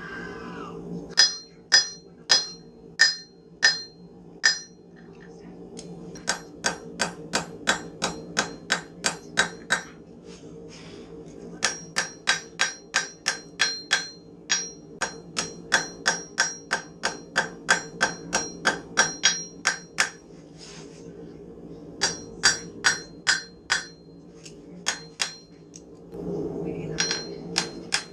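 Forging hammer striking a knife blank on an anvil. It comes in runs of steady blows, about two a second, each with a bright metallic ring, broken by short pauses. A steady low hum runs underneath.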